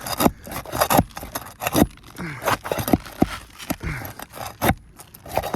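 A tool scraping and knocking against a roof shingle as a roofing nail is pried up, in a series of irregular sharp clicks and scrapes.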